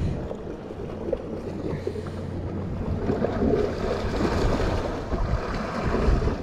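Wind rumbling on the microphone over the rush of the sea washing against shore rocks, the wash swelling about three seconds in.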